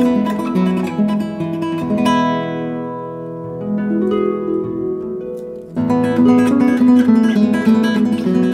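Background music led by plucked, strummed acoustic guitar. It softens in the middle and comes back fuller about six seconds in.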